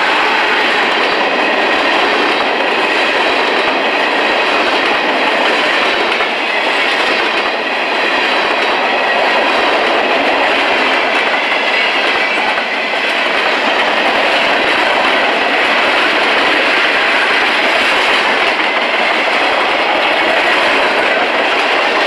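Freight cars rolling past at close range: steel wheels running on the rails and car bodies rattling, making a loud, steady noise that goes on without a break.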